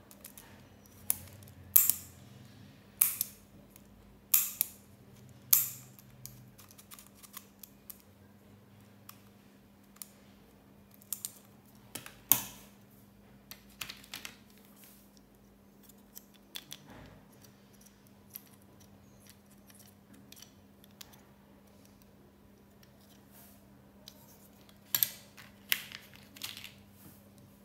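Sharp plastic clicks from handling stationery: a four-colour retractable ballpoint pen clicked about five times, roughly a second apart, then scattered lighter clicks and taps of small plastic pieces such as a sharpener being handled and set down, with another run of clicks near the end.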